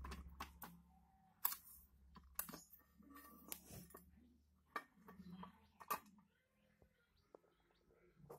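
Scattered faint clicks and knocks, about a dozen at uneven intervals, from an old metal charcoal iron being handled and turned over.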